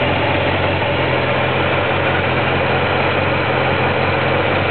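1989 Yamaha XJ600's air-cooled inline-four engine idling steadily.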